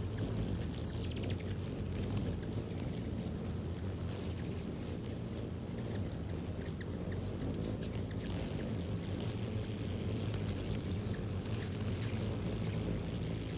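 Ruby-throated hummingbirds giving short, high chip notes, scattered irregularly, the sharpest about five seconds in, over a steady low background hum.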